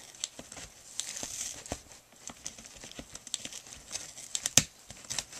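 Puppy chewing and tearing at a cardboard box: irregular crackling and crinkling, with a sharper crack about four and a half seconds in.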